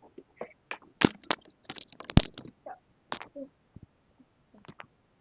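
Irregular sharp clicks and taps from hands handling small hard objects, the loudest about one and two seconds in.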